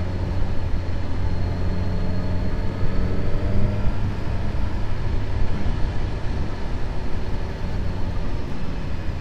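Suzuki GSX-S1000GT's inline-four engine running on the move, over a steady rush of wind noise. Its pitch rises between about two and four seconds in as the bike accelerates.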